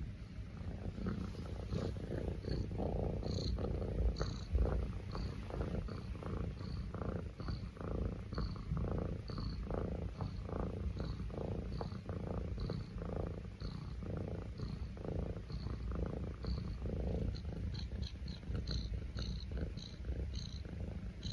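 Domestic cat purring close up, steadily, the purr pulsing with each breath in and out about every three quarters of a second.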